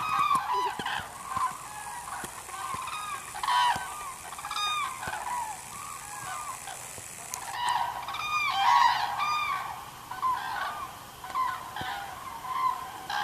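Flock of common cranes calling as they leave their roost and fly over: many overlapping rolling calls, one over another, swelling loudest a little past the middle.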